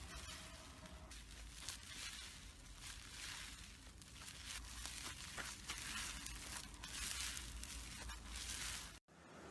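Slime being squeezed and stretched by hand, making a continuous run of fine crackles and crinkling. It cuts off suddenly near the end.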